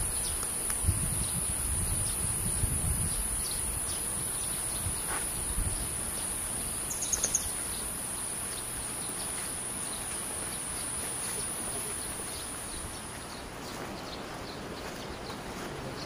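Insects droning in a steady, high-pitched buzz that fades out about three-quarters of the way through. Footsteps thud on the grassy trail during the first few seconds.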